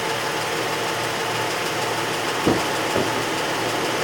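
Ford Edge engine idling steadily, with two light taps a little past halfway.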